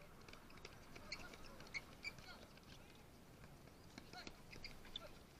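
Faint, distant sounds of a handball game on a concrete court: scattered short knocks and taps from the ball and players' feet, with brief far-off shouts from the players.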